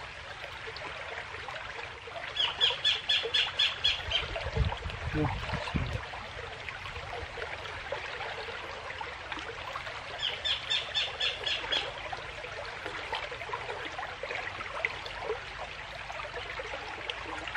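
Rushing water of a fast, flooded stream, with a high, rapid, squeaky chattering call of about six notes a second sounding twice, about eight seconds apart. A few low thumps come about five seconds in.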